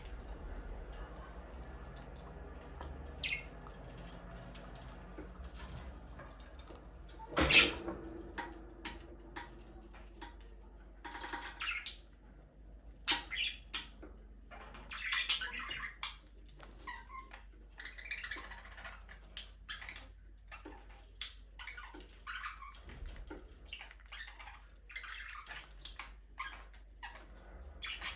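Budgerigars chirping and squawking in many short calls that come in busy clusters with brief lulls between them; the loudest burst comes about seven and a half seconds in.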